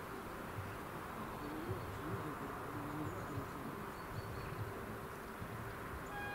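Steady outdoor background noise with a low hum; right at the end, the level crossing's electronic warning signal starts sounding a steady multi-note tone.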